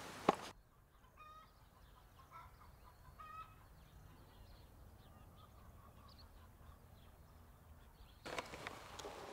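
Faint, distant chickens clucking: a few short calls in the first few seconds over a low steady rumble. A louder rustling hiss comes in about a second before the end.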